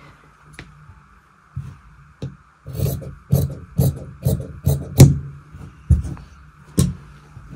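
Tailor's shears snipping through blouse fabric, about ten sharp cuts at roughly two a second, the loudest about five seconds in.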